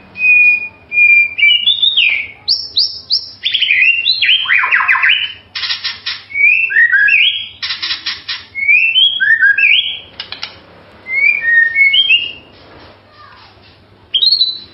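White-rumped shama (murai batu) singing a varied run of clear whistles and quick rising and falling phrases, broken by three short harsh rattling notes, with a quieter pause near the end.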